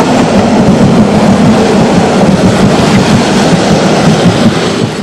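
Train carriages rolling past close by: a loud, steady rumble of steel wheels on the rails.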